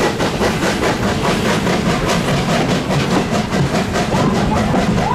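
Steam tank locomotive working hard up a grade: its exhaust chuffs come in a quick, even rhythm. The wheels of the passenger coaches rumble and clack along the track as they roll past.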